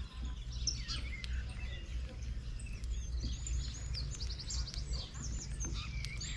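Several small birds chirping and calling over one another, with a quick trill of short repeated notes about four seconds in. A steady low rumble runs underneath.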